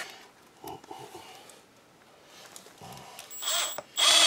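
Cordless drill/driver motor briefly triggered in two short bursts near the end, a high whine each time, after a few faint handling knocks.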